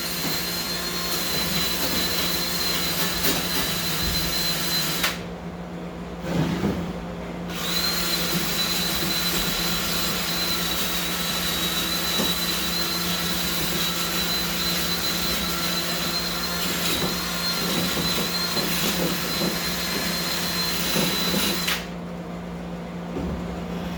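Cordless power tool running steadily with a high whine as it takes loose rust off steel hood hinge parts. It stops about five seconds in, starts again a couple of seconds later, and stops near the end.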